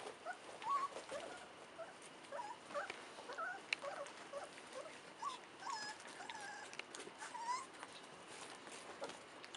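English golden retriever puppies about 25 days old squeaking and yipping in many short calls as they play-fight: the start of their play growling.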